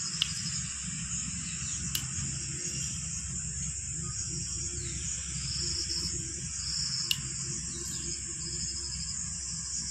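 Insects chirring steadily and high-pitched, with a fast pulsing texture, over a low rumble. Three sharp clicks cut through: near the start, about two seconds in, and about seven seconds in.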